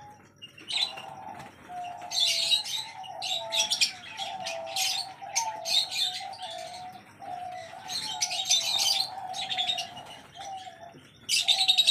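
Doves cooing steadily in a loft, with small birds chirping over them in repeated short bursts.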